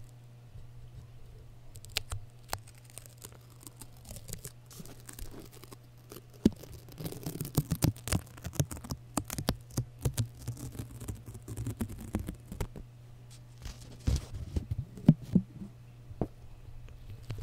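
Adhesive tape being stuck onto and peeled off a foam-covered microphone up close: irregular sticky crackles and ticks, sparse at first and growing denser from about seven seconds in.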